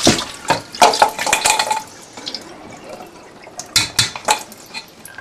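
Goat trotters being rinsed in a stainless steel colander under a running tap: for about two seconds the trotters clatter and knock against the metal colander over splashing water. Then it goes quieter, with a few more knocks a little before four seconds in as the colander is handled.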